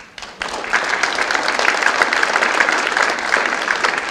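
Audience applauding, building up about half a second in and then holding steady.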